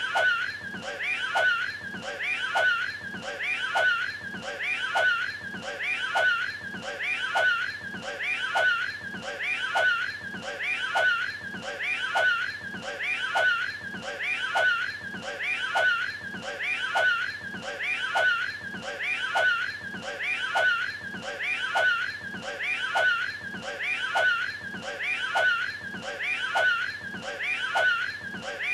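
A short, strained vocal clip of the Cat in the Hat straining to throw up a hairball, looped over and over in a quick, even rhythm.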